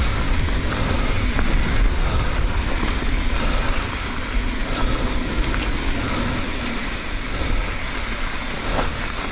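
Mountain bike ride down a dirt trail: wind rushing over the camera mic with a steady low rumble, and tyres and frame giving scattered clicks and rattles.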